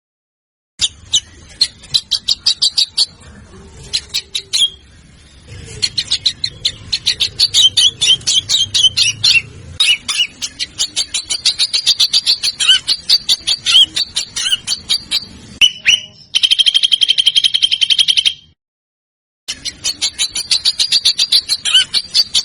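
Recorded songbird calls made into a training track for competition birds: rapid runs of sharp, repeated chattering notes and a dense, steady trill. The clips are spliced together with brief silent gaps between them.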